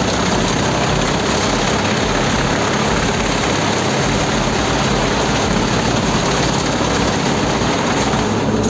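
Large wood chipper running steadily: a loud, even machine noise with a low engine hum underneath.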